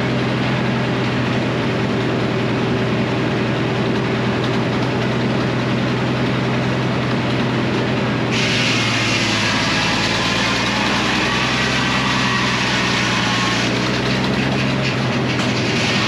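Frick circular sawmill running steadily with a low engine hum. About eight seconds in, a bright hissing cutting sound joins it for about five seconds as the blade saws through a maple log, then stops while the mill runs on.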